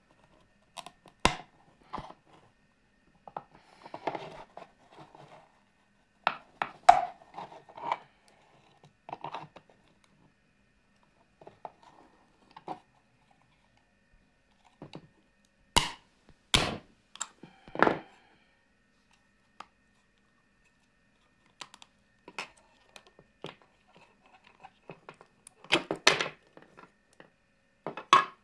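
Black plastic case of a 12 V wall-plug charger being pried apart with pliers: irregular sharp cracks, snaps and clicks as the case seams give way, with short stretches of scraping between them.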